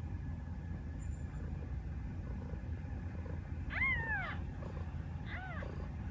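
Newborn Ragdoll kittens giving two short, high mews, the first about four seconds in and the second a second and a half later, over a steady low purr from the mother cat.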